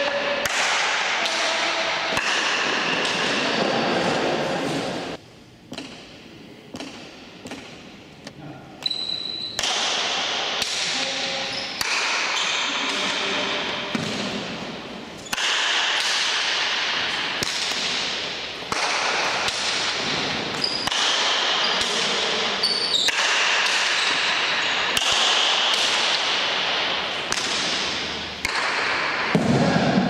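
Basque pelota rally played with wooden paletas. Sharp cracks come from the ball being struck by the paddles and from it hitting the front wall, each echoing in the large indoor court. There is a quieter pause about five to nine seconds in.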